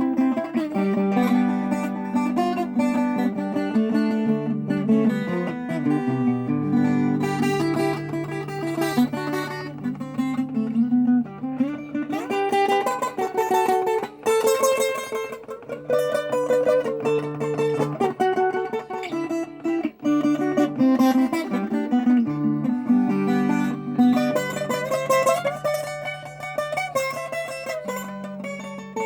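Viola caipira with a Brazilian rosewood (jacarandá) body being fingerpicked solo: a melody of plucked notes over held bass notes that ring on.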